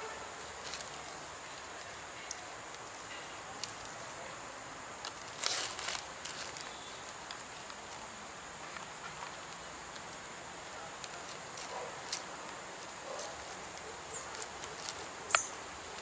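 Ripe jackfruit being pulled apart by hand: scattered soft rustling and tearing of the fruit's pulp, with a few short clicks, over a faint steady outdoor hiss.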